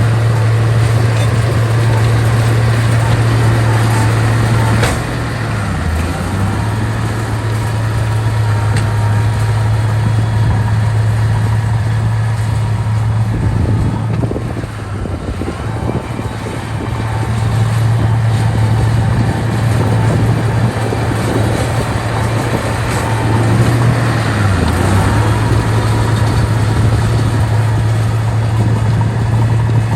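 Heavy diesel engine running with a steady low drone, its pitch and level dipping briefly about five seconds in and again about twenty-five seconds in.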